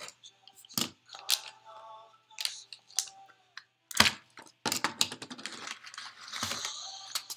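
A blade cutting through the seal on a cardboard bat tube, then hands pulling crumpled paper packing out of the tube: a run of sharp scrapes and clicks, turning to denser paper rustling about four seconds in.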